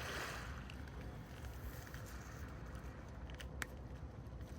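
Steady low rumble of wind and sea at the waterside, with a brief rush of noise near the start and a few sharp clicks about three and a half seconds in.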